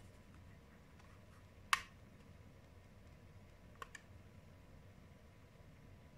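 Button clicks on a pair of Eachine EV800D FPV goggles as they are switched on: one sharp plastic click a little under two seconds in, then two faint quick clicks near four seconds in.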